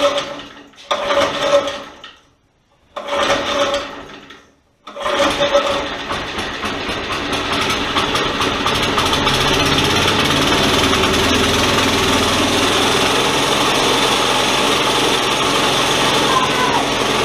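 Briggs & Stratton single-cylinder small engine on a go-kart being pull-started: three pulls of the recoil starter, catching on the third about five seconds in, then running steadily.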